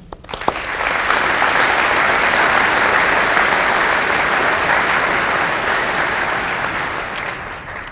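Audience applauding, swelling within the first second, holding steady, then fading away near the end.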